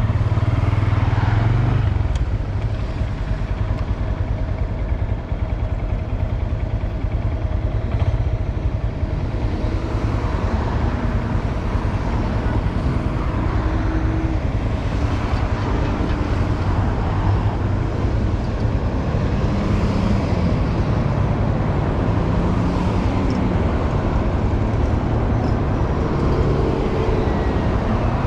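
2022 Honda Grom's small single-cylinder engine running, its note shifting up and down.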